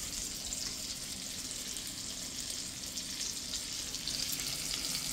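Pork chops frying in butter and bacon grease in a cast-iron skillet, a steady sizzle.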